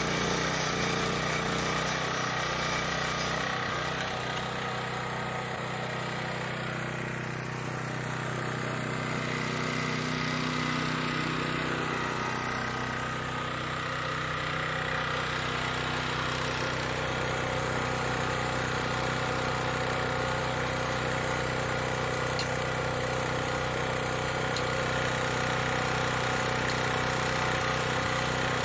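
Husqvarna Soff-Cut 150 gas-powered early-entry saw running steadily, its diamond blade cutting a control joint into green concrete.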